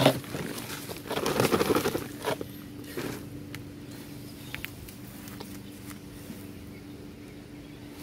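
Rustling and scraping of soil and potato plants being handled, loudest for a second or so about a second in, with a few faint clicks after it. Underneath runs the steady drone of a lawn mower.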